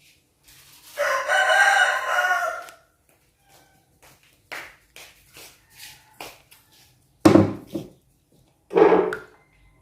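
Rooster crowing once, a long call of nearly two seconds about a second in; later a few light clicks and two short, louder sounds near the end.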